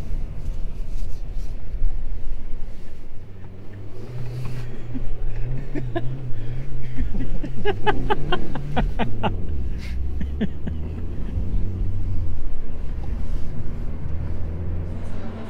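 Car engine and road noise heard inside the cabin while driving: the engine note climbs steadily, then drops about nine seconds in as the car changes up a gear. A quick run of sharp clicks sounds just before the shift.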